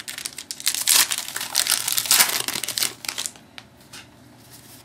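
Wrapper of a basketball trading-card pack crinkling in the hand for about three seconds, then stopping, with a few faint clicks after.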